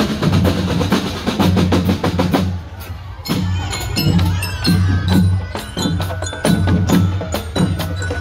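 Marching band drumline playing snare and bass drums in a driving rhythm. From about three seconds in, bell lyres join with a ringing metallic melody over the drums.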